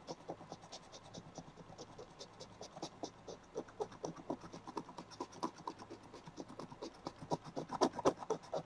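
Scratch-off card being scratched off, a fast run of short scraping strokes that grows louder near the end.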